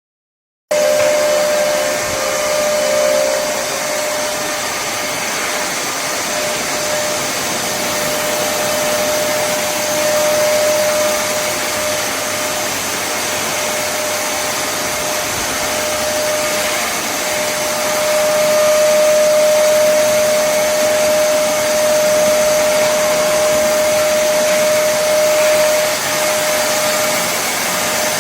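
Kärcher WD 2 Plus wet and dry vacuum cleaner running steadily: a loud rush of air with a steady motor whine. It starts suddenly under a second in.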